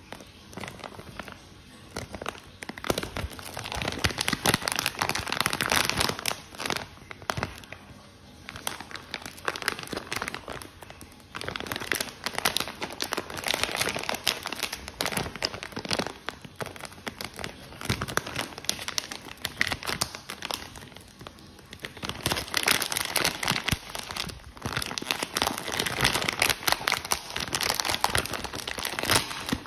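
Thin clear plastic bag crinkling and rustling as hands squeeze and pull it open, in several louder bouts with quieter spells between.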